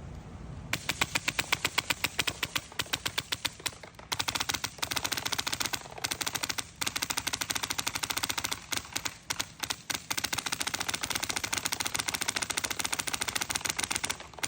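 Heretic Labs HPA airsoft rifle, fed by a compressed-air tank, firing. Rapid single shots come several a second for about three seconds, then long full-auto bursts with short pauses between them.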